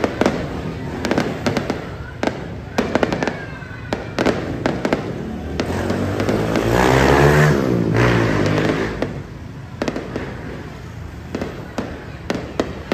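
Aerial fireworks bursting: a run of sharp bangs and crackles at irregular intervals. A louder rushing noise swells and fades about midway through.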